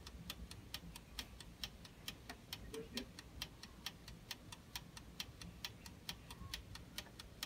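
Toaster oven's mechanical dial timer ticking as it runs down the bake: quick, even, faint ticks, roughly four or five a second, over a low hum.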